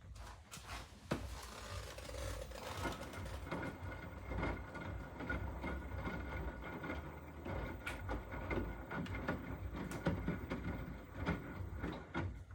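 Hotpoint WMFUG942 washing machine running its first wash: a steady motor whine over a low rumble, with irregular knocks.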